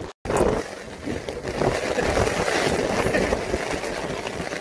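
Strong wind buffeting a phone's microphone in a steady rushing noise with a low rumble.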